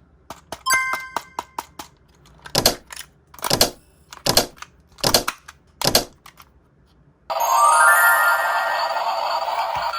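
A quick run of clicks with a brief ding, then five separate noisy hits about three-quarters of a second apart; music starts about seven seconds in.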